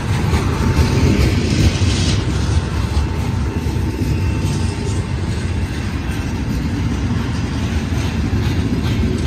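Freight train cars (covered hoppers and tank cars) rolling past close by. A steady low rumble of steel wheels on rail, with clicking wheel-on-rail clatter toward the end.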